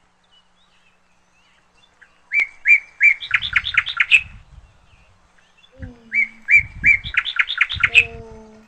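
Sparrows chirping in two bursts of rapid, repeated chirps, each quickening into a chatter, with low thumps under the chirps.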